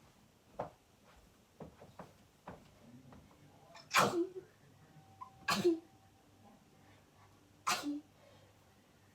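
A person sneezing three times in a row during a sneezing fit, each sneeze short and sharp, the first about four seconds in and the others about a second and a half to two seconds apart.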